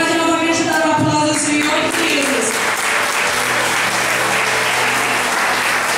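Congregation applauding, the clapping swelling about two seconds in, over a sustained electric keyboard note.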